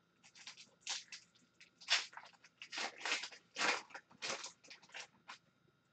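Foil wrapper of a hockey trading card pack crinkling as it is torn open and the cards are pulled out, in a string of short crackly rustles.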